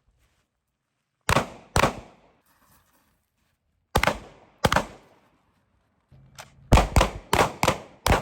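A 9mm pistol fired in two quick pairs, then a fast string of five shots, each crack with a short ringing tail.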